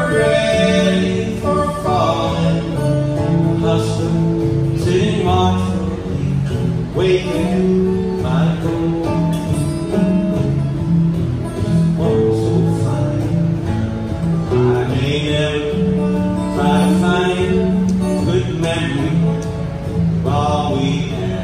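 Two acoustic guitars strummed and picked together in a live folk-country song, with a man singing.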